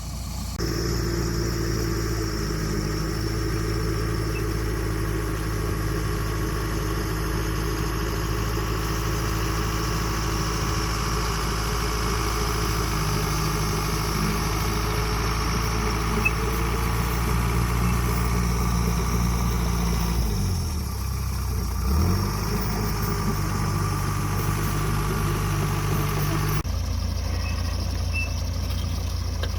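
Dresser bulldozer's diesel engine running steadily while grading. About two-thirds of the way through, its note dips briefly and comes back up. Near the end the sound changes abruptly to a lower, duller hum.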